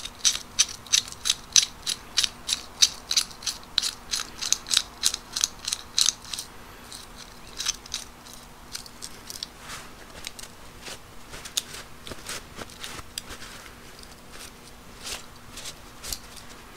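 Vintage BMC Manufacturing Corp adjustable locking wrench (1945 patent), freshly de-rusted, clicking as its handles and jaws are worked open and shut. The sharp metal clicks come about three a second for some six seconds, then a few scattered clicks.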